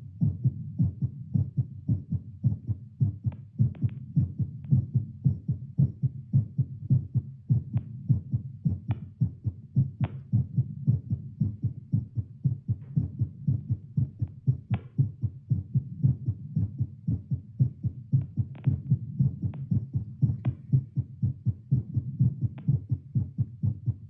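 Heartbeat amplified through a Littmann CORE digital stethoscope on the chest: a fast, steady lub-dub at roughly 110 to 120 beats a minute, raised by exertion from squats.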